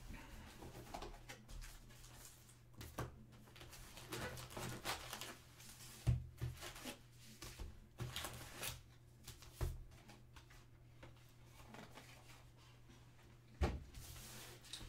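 Faint rustling and light taps of a cardboard trading-card box and its wrapped card packs being handled: the lid lifted, packs pulled out and stacked on a table, with a few sharper knocks between quieter crinkles.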